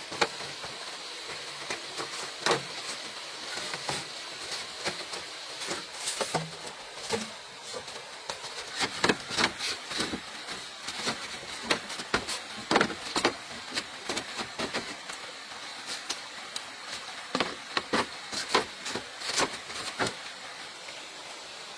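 Irregular knocks and clicks of manual work, over a steady faint hiss.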